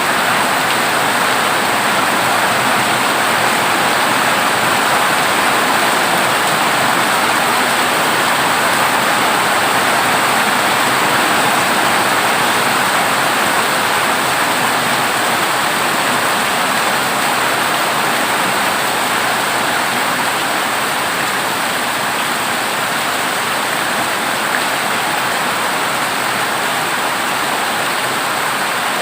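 Heavy rain pouring steadily onto a corrugated zinc roof, a dense, even hiss.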